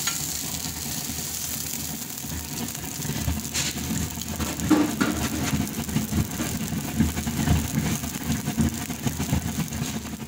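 A chicken burger patty sizzling on a hot flat-top griddle, a steady crackle over a low rumble. A metal spatula clacks once on the griddle at the start.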